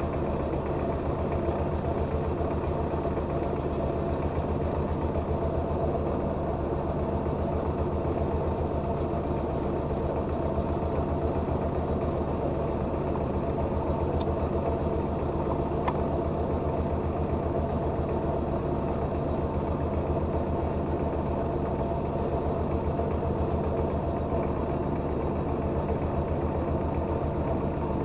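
The engine of a rice-milling machine running steadily at a constant speed, with an even rapid pulse.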